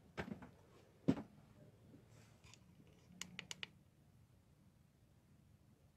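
Faint knocks and clicks: a couple near the start, a louder knock about a second in, and a quick run of four or five sharp clicks a little after three seconds in.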